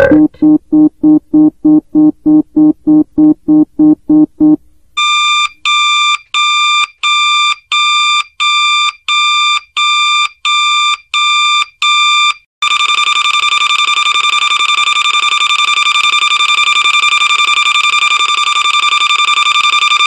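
Electronic alarm sound effects in sequence. First a low buzzing tone pulses about four times a second. After a short gap, a higher electronic beep repeats about one and a half times a second. Past the halfway point it changes to one continuous high alarm tone.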